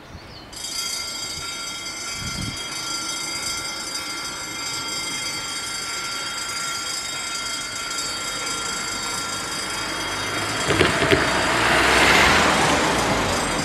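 Level crossing warning bells start about half a second in and keep ringing steadily. A car drives past close by near the end, rising to the loudest point.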